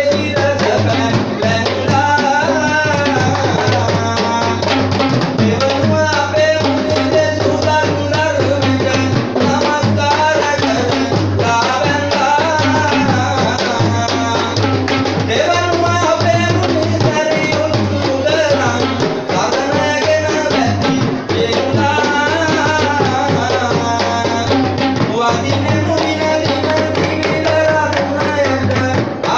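Sri Lankan traditional drums played together in a fast, dense ensemble rhythm, with a wavering melodic line above the drumming.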